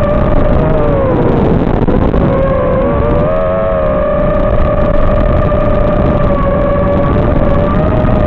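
FPV model aircraft's motor and propeller whining steadily over heavy wind rush, heard from on board. The pitch sags about a second in and climbs back up around three seconds in, as the throttle is eased off and opened again.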